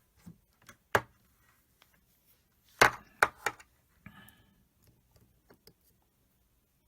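A few sharp clicks and knocks from multimeter test probes and small parts being handled on a workbench. One comes about a second in, then three in quick succession just before the middle, the first of these the loudest.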